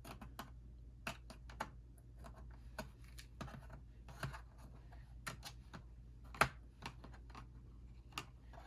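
Light, irregular clicks and taps of a laptop's plastic case and parts being handled during disassembly, with one sharper click about six seconds in.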